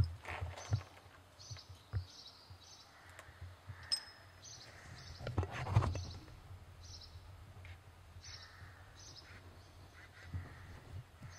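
Birds chirping in short high calls repeated about twice a second, over uneven low thumps of footsteps, with a louder, rougher noise about halfway through.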